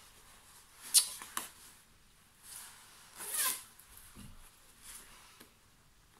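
The zipper of a C.P. Company D.D. Shell padded down jacket being worked by hand, with rustling of the nylon shell. A sharp click comes about a second in, then a zipping swish a little past three seconds.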